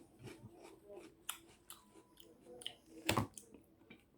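Eating sounds: chewing with scattered light clicks and taps, and one louder knock about three seconds in.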